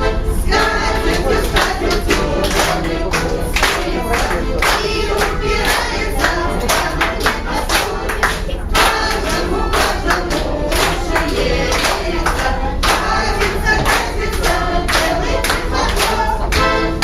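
A group of amateur singers singing a Russian song together, with a steady beat behind them.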